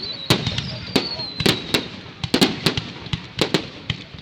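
Fireworks going off: a quick, uneven run of sharp bangs, with a high whistle gliding down in pitch over the first two seconds.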